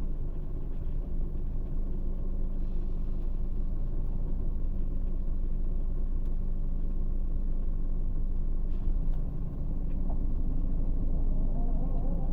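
Scania K400 bus's 13-litre six-cylinder diesel engine running with a steady low rumble, a rising whine coming in near the end.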